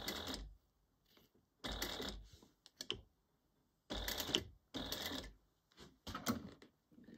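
Sewing machine stitching vinyl binding through the bag layers in several short half-second runs with pauses between, inching forward slowly.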